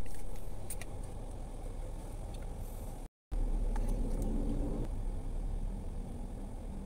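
Steady low rumble of a car's interior, with a few light clicks from makeup cases being handled; the sound drops out for a moment about three seconds in.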